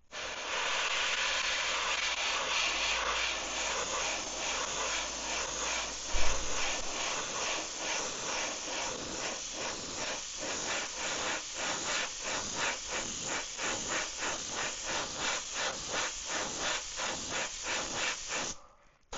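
Airbrush spraying paint onto a lure: a steady hiss of air and paint that, from about eight seconds in, pulses evenly about twice a second as the flow is worked on and off. There is a single thump about six seconds in.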